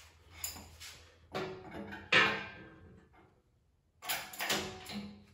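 Metal clanks and rattles from a shop engine hoist as its pump handle and chains are worked, in irregular strikes, the loudest a sharp clank about two seconds in that rings on briefly, then another cluster of clanks near the end.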